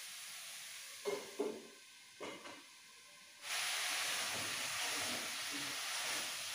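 Food frying in oil in a kadai: a steady sizzle, with a few short knocks in the first half, then the sizzle comes in suddenly much louder about three and a half seconds in.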